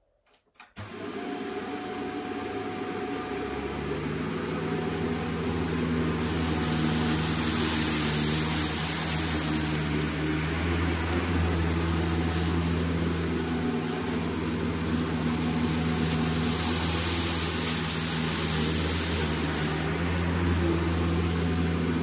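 A Shark NZ850UKT corded upright vacuum cleaner is switched on about a second in. Its motor spins up over a few seconds, then runs steadily. The rush of air swells louder twice as it cleans.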